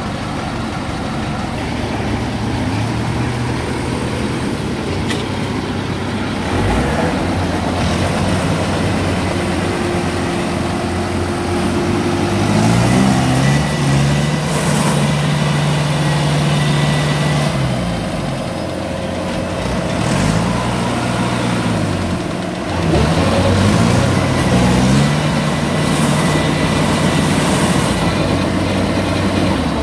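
Yanmar AW82V combine harvester's diesel engine running under load while the machine sits bogged down in deep mud, its pitch rising and falling several times from about midway as it is revved up and eased off.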